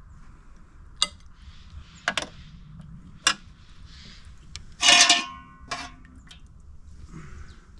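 Metal utensils clinking against a cooking pot and plate while stew is being served: a handful of sharp clinks, the loudest about five seconds in with a brief metallic ring.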